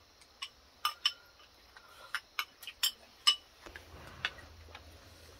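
Eating utensils clinking and tapping against bowls as people eat a meal: about ten sharp, irregular clicks over the first four seconds.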